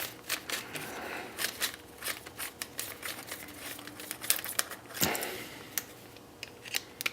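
Irregular small clicks and scrapes of a screwdriver working at screws and plastic parts of a dot-matrix printer, with a longer scrape about five seconds in.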